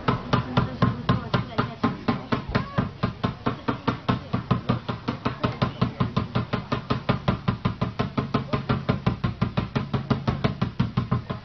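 A monkey bouncing a rubber ball rapidly against a hard floor: a very even run of thuds, about five a second, keeping on without a break.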